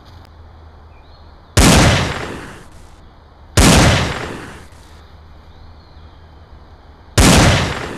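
Three gunshots, each a sharp crack trailing off in a long echo, the second about two seconds after the first and the third about three and a half seconds later. They are sound-effect gunfire laid over a battle scene played with wooden prop rifles.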